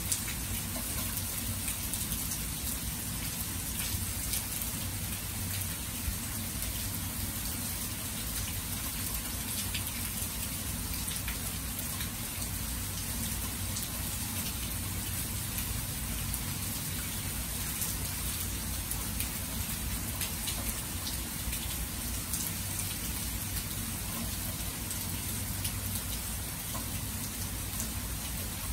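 Steady rain falling, an even hiss with scattered louder drop taps and a low rumble underneath.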